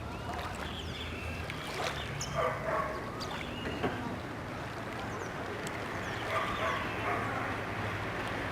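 Birds chirping and calling in short, scattered notes over a steady low hum, with other faint distant calls mixed in.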